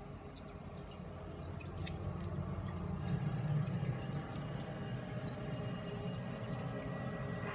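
Aquarium filter running, water trickling and splashing into the tank over a steady low hum.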